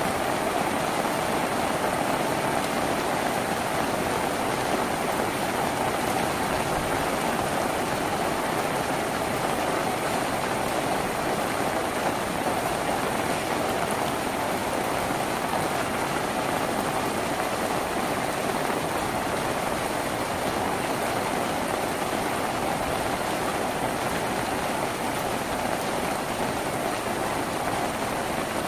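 Steady rain falling on a tin roof, heard from inside the house.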